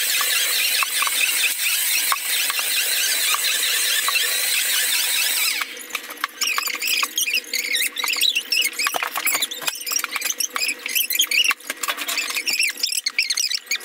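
Sped-up audio of house cleaning: an upright vacuum cleaner running as a high hiss, which cuts off suddenly about five and a half seconds in. It is followed by a run of high-pitched, squeaky warbles and clicks.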